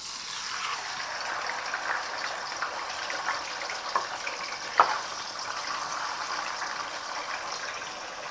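Halved carp sizzling in hot cooking oil in a wok, the sizzle starting sharply as the fish goes in and running on steadily, with a couple of sharp pops of spattering oil about four and five seconds in.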